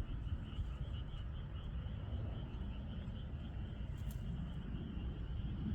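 Insects chirping in a steady, pulsing trill, over a low rumble.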